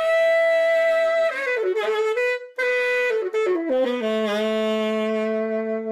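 Solo saxophone playing a slow phrase of long held notes joined by short runs, settling near the end on a long low note.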